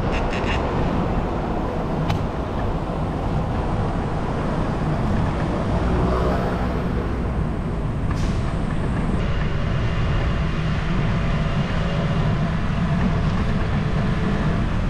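Steady low rumble of wind buffeting the microphone and street traffic noise, heard from a bicycle riding through city streets, with a few light clicks at the very start.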